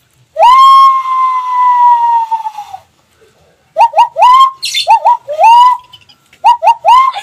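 Police siren imitated with a hand whistle, blown into clenched hands with the thumbs pressed together. One long whoop rises and holds, sagging slowly for about two and a half seconds. After a pause come three quick groups of three short rising 'wuk' whoops, the last of each group slightly longer.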